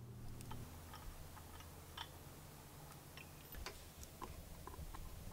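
Faint, irregular light clicks and ticks of hands and tools working on metal winch fittings, a few each second, over a low steady hum.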